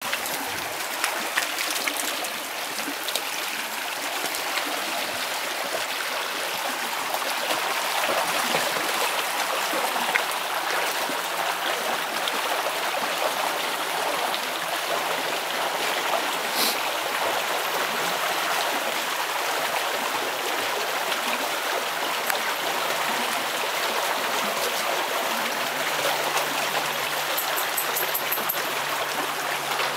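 Shallow creek running, a steady rush of water, with dogs wading through it.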